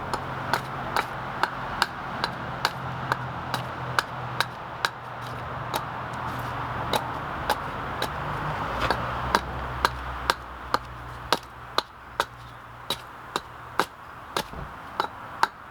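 Sharp, evenly spaced strikes of a hand tool on a wooden stump, about two a second, over a steady low hum.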